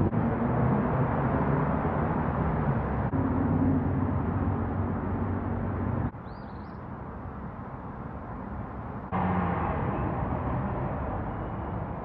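Outdoor background noise with a steady low engine rumble. The sound changes abruptly about every three seconds, drops to a quieter stretch about six seconds in, and comes back louder about three seconds later.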